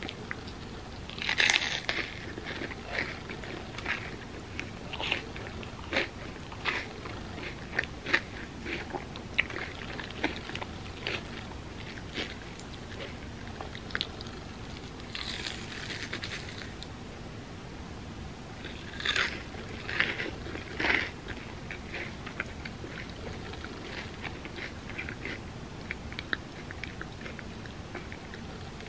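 Close-miked eating of crispy fried mochi bread: a few loud crunchy bites, with crisp crunching chewing in between.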